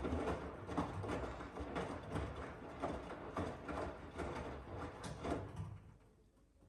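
Miele W1 front-loading washing machine running a wash cycle: the drum turns with the laundry tumbling in irregular knocks and swishes, then stops about six seconds in.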